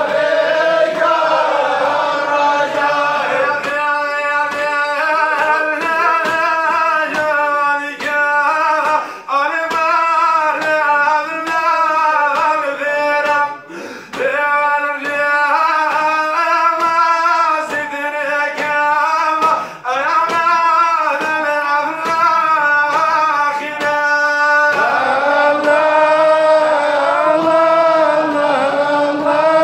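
Male voices singing a melodic Sufi devotional chant in unison, in long phrases of a few seconds with brief breaks between them.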